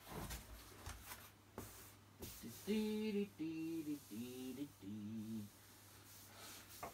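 A man humming a short tune of four held notes starting about two and a half seconds in, after a few light knocks and rustles.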